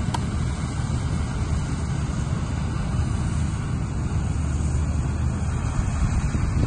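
Kartar Crop Cruiser combine harvester running steadily while cutting the crop: a constant low engine drone.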